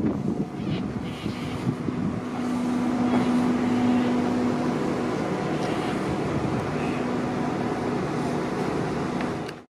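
Steady outdoor rumble with a low, even mechanical hum that swells a couple of seconds in, fades, and returns later; it cuts off abruptly just before the end.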